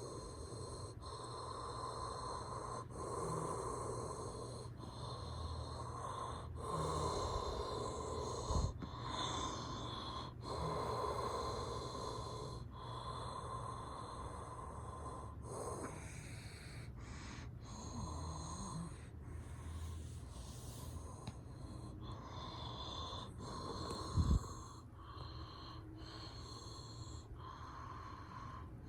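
Window air conditioners running: a steady fan and compressor hum, with two short knocks.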